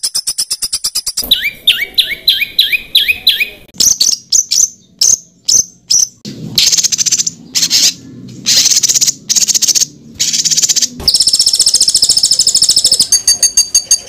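Spliced recordings of different songbirds calling in quick succession, masteran material for training competition songbirds. A fast high trill gives way to about six repeated rising whistled notes, then a run of sharp high chips and harsh rasping calls. Near the end comes a dense, high buzzing trill.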